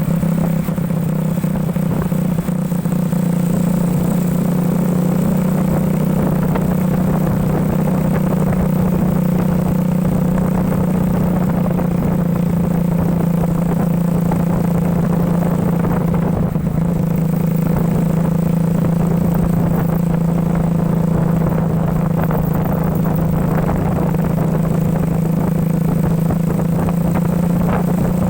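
Motorcycle engine of a home-built ATV running at a steady, unchanging speed, with a light rattle over its hum.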